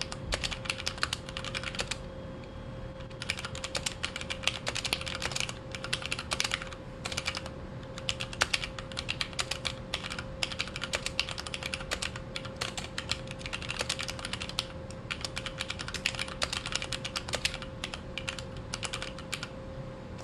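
Typing on a Xiaomi MK02 Pro mechanical keyboard with Cherry MX Red linear switches: rapid key clacks in runs, with brief pauses about two seconds in and again around seven seconds.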